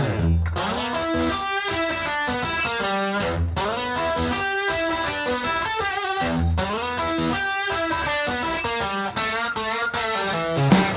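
Outro music: electric guitar playing a repeating melodic phrase over a bass line, with a little distortion.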